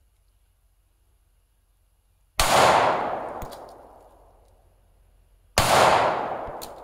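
Two shots from a World War II-era 1911 pistol firing .45 ACP, about three seconds apart, each sharp crack trailing off in a long fade.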